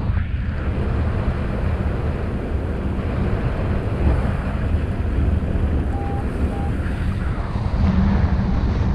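Airflow of paraglider flight buffeting the camera microphone, a steady low rumbling wind noise. About two-thirds of the way in, the flight variometer gives two short beeps.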